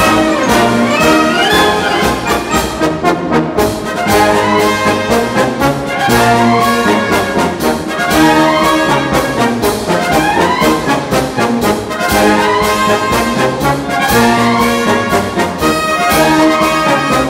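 Military brass band playing a march, with rising phrases repeating over a steady beat.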